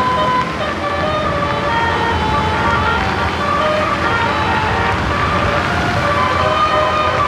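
A bus's telolet 'basuri' musical horn playing a tune in held tones that step from pitch to pitch every half second or so, over a steady low rumble.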